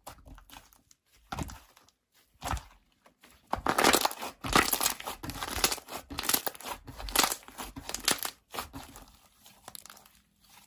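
Hands squishing and stretching slime, making irregular crackling, crinkling squelches; they come sparsely at first, then thickly through the middle.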